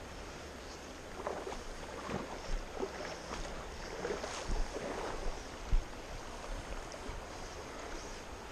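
Steady rush of a fast river. From about a second in, irregular splashing and sloshing water close by, with a few low knocks, the loudest near six seconds in.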